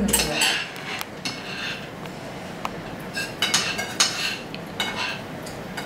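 Spoons and forks clinking and scraping on plates as several people eat at a table, in scattered light clinks.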